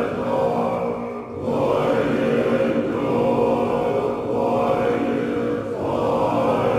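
A group of voices chanting in a temple ritual, holding steady pitches in repeated phrases a second or two long with short breaks between them.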